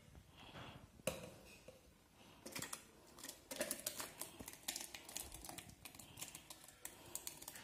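A steel spoon clinks and scrapes against a metal pot while wet melon pulp is tipped into a steel mixer jar. There is one sharp clink about a second in, then a busy run of quick clicks and soft wet plops from about two and a half seconds on.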